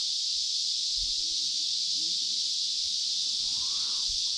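Steady, high-pitched insect chorus, an unbroken drone that holds at one level throughout.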